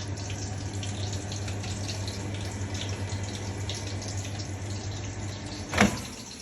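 Steady sound of running or splashing water over a low hum, cut by a single loud knock a little before the end.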